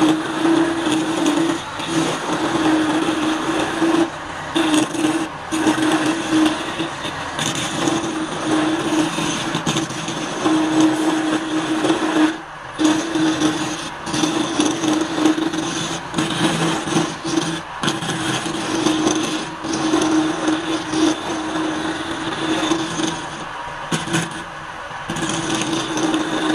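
A wood lathe spins a wooden spindle while a hand-held turning tool cuts it and throws off shavings. A steady hum runs under a rough hissing cut, which drops out briefly several times.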